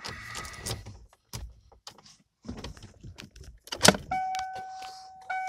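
Keys rattling and small clicks of handling inside a 1995 Mustang's cabin, then a sharp knock just before four seconds in. After it the car's warning chime sounds as a steady tone, breaking off once briefly near the end.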